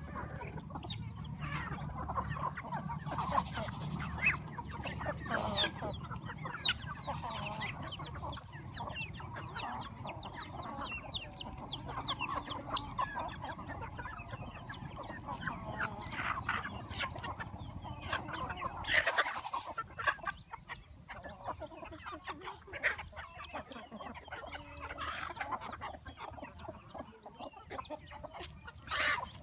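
A flock of chickens clucking and calling over one another, with a few brief louder noises among them. A low steady hum underneath stops about two-thirds of the way through.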